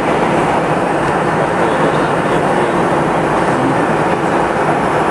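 Airplane cabin noise in flight: a loud, steady rush of engines and airflow heard from inside the cabin, even throughout.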